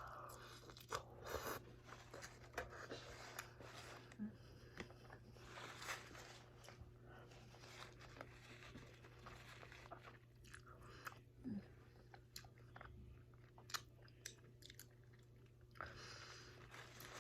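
Faint close-up chewing and crunching of chicken wings, with many small scattered mouth clicks and smacks.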